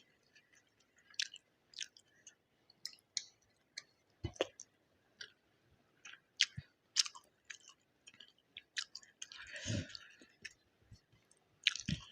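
Close-miked chewing of a mouthful of egg biryani: irregular wet smacking and clicking mouth sounds. One longer, louder wet sound comes about nine and a half seconds in.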